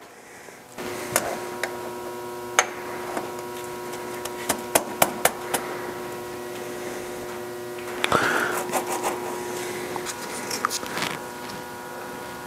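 Steady electrical hum with scattered sharp clicks and clinks of metal lathe gearbox parts being handled and fitted, and a short scrape about two-thirds of the way through.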